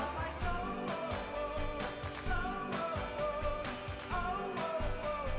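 Background pop song: a singing voice over a steady beat.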